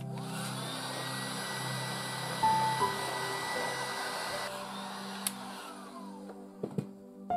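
Electric heat gun blowing hot air onto heat-shrink sleeving on a power cable, with a steady blowing noise and whine. It is switched off about four and a half seconds in, and its fan winds down with a falling pitch.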